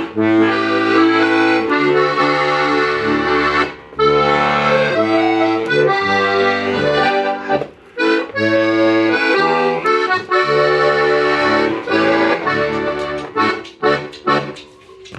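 Oberhorner Steirische Harmonika, a Styrian diatonic button accordion, playing a traditional tune: treble chords over alternating bass notes, with short breaks in the phrasing. Near the end the playing thins to a few separate notes and stops.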